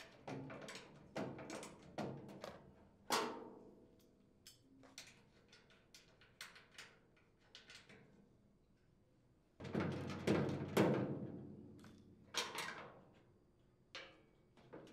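Clicks and metallic knocks of a wrench and socket ratchet loosening nuts on the steel housing of a chipper shredder, with a louder metal clatter about ten seconds in and another about two seconds later.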